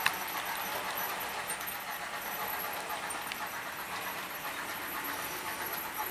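HO-scale model freight train of hopper cars rolling along the track, a steady running noise of small wheels on rail, with one sharp click near the start.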